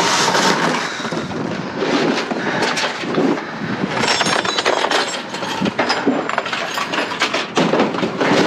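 Rummaging through junk: a run of knocks, clinks and rustling as items are handled, shifted and tossed.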